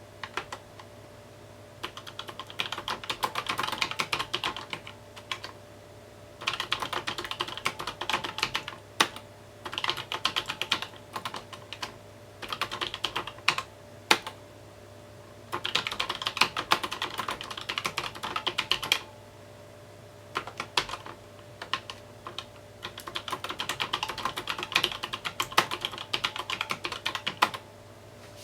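Typing on a mechanical keyboard, with runs of rapid keystrokes lasting a few seconds each. The runs are broken by short pauses and the odd single keypress.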